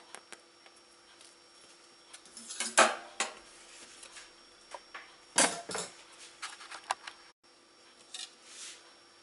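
Clinks and knocks of a metal spatula and a bread loaf being handled and set down on a granite countertop. The two loudest knocks come about three and five and a half seconds in.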